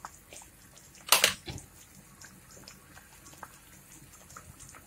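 Tamarind and jaggery chutney simmering in a pan, small bubbles popping now and then, with one short louder knock about a second in.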